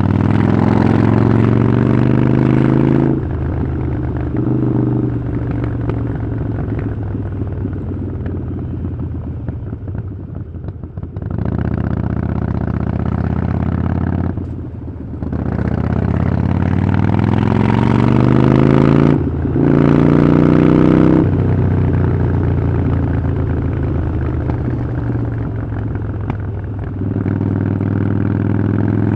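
Harley-Davidson Iron 883's air-cooled V-twin through a Vance & Hines exhaust, ridden under acceleration. The engine pitch climbs and then drops sharply at each gear change, about three seconds in, again past the middle and once more a few seconds later. In between there are stretches of lower, off-throttle running.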